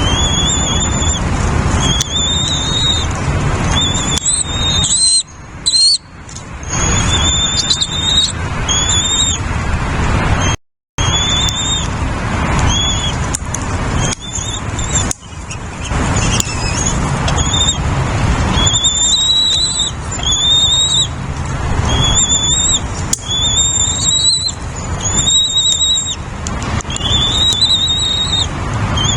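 Nestling birds giving high-pitched begging calls over and over, each note lasting about half a second to a second, over a loud, steady rushing noise. The sound cuts out for a moment about eleven seconds in.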